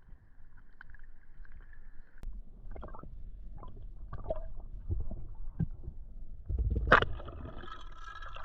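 Muffled underwater gurgling and scattered knocks heard through a camera in the water, with one sharp, loud crack about seven seconds in.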